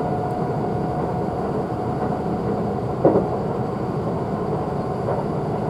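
Kintetsu limited express train running at speed, heard from inside the carriage: a steady rumble with a faint steady whine, and a single clack about three seconds in.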